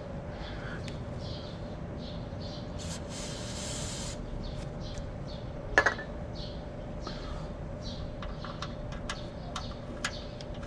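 Metal parts and hand tools being handled during a shock absorber installation: a brief hiss about three seconds in, a single sharp metallic clink about halfway through, and a run of light clicks near the end. Underneath are a steady hum and faint repeated bird chirps.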